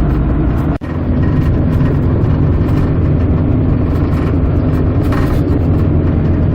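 Honda Civic's four-cylinder engine running steadily, with a continuous low hum of engine and road noise. The sound drops out sharply for an instant about a second in.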